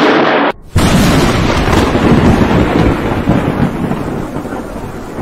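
Thunder from close lightning strikes: a loud crash cuts off about half a second in, then a second sudden thunderclap that rumbles and slowly fades over the following seconds.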